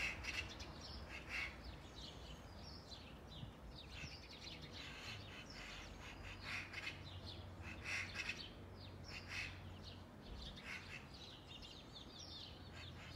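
Crows cawing, short harsh calls repeated every second or two, over a faint low hum.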